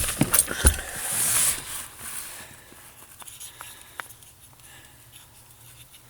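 Hands rustling and handling parts under a car's dashboard during a turn-signal flasher swap. There are two sharp clicks within the first second, and the rustling fades after about two seconds, leaving a few faint ticks.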